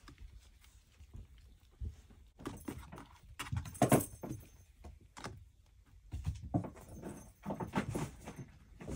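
Kittens playing: a patter of small paws with scattered knocks and rattles, busiest in two spells, with the loudest knock about four seconds in.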